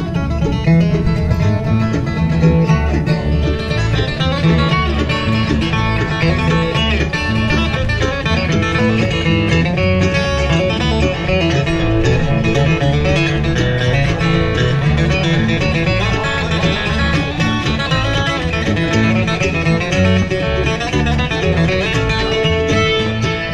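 A bluegrass band playing, with acoustic guitar and banjo picking.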